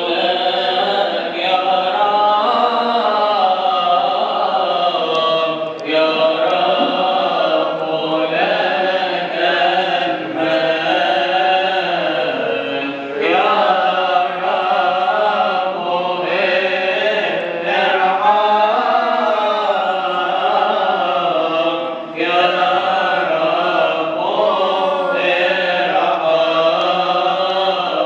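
Coptic Orthodox liturgical chant: several voices singing a long, melismatic hymn together, the notes held and wavering in ornament, broken by short breaths every few seconds.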